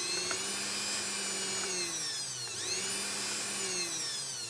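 Bosch blender's motor running on its momentary (pulse) setting: a motor whine that rises in pitch, sags, rises again and then winds down. The momentary setting, which would not run before, now runs after the selector switch contacts were repaired.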